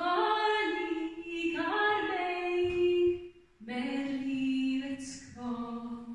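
A woman singing a slow Swedish song unaccompanied, in two phrases with a short breath between them about three and a half seconds in; the second phrase sits lower and fades away at the end.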